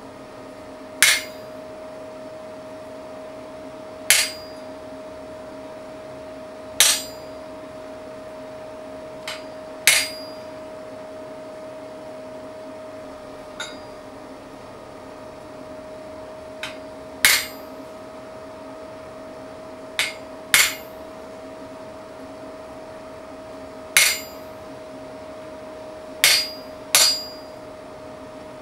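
Hammer blows on a wooden-handled chisel set into a hot steel bar on an anvil: about a dozen sharp metallic strikes a few seconds apart, some in quick pairs, each with a short high ring. A steady hum runs underneath.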